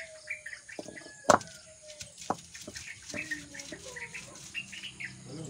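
Stone roller knocking and grinding garlic on a flat stone grinding slab, with one sharp knock about a second in and a lighter one a second later, among small scraping clicks. Birds chirp throughout.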